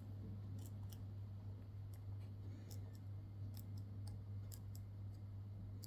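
Faint, scattered clicks of a lock pick working the pins of a pin-tumbler lock under tension, as pins are lifted and set, over a steady low hum.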